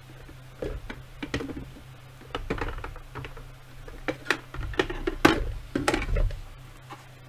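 Handling noise of a hard plastic cosplay helmet being picked up and moved: irregular knocks, clicks and rustles, about half a dozen, the loudest about two-thirds of the way through.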